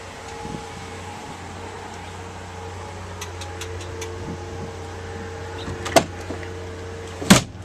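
A steady low hum, with a few light clicks partway through, then a sharp knock about six seconds in and a heavier, louder thump near the end, like a pickup's door being pushed shut.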